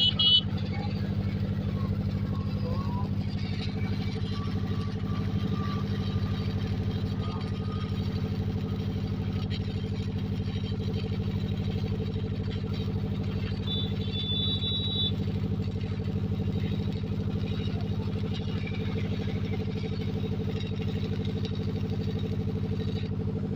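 An engine running steadily at a constant speed without revving, with a brief high beep about halfway through.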